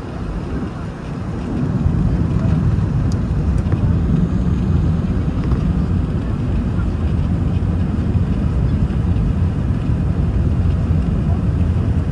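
Airbus A380 cabin noise on the descent to landing: a steady low rumble of engines and airflow, which grows louder about two seconds in and then holds.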